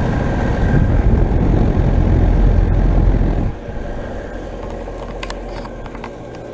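York Affinity series heat pump outdoor unit running in heat mode, its fan and compressor giving a steady hum with faint steady tones. Heavy air buffeting on the microphone adds a loud low rumble that drops off sharply about three and a half seconds in; a few light clicks come near the end.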